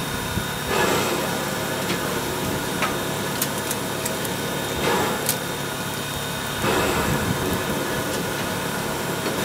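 An egg sizzling in butter on a hot coal shovel held at the open firebox door of a steam locomotive, under the steady rush of the fire and steam in the cab, with a few light clicks.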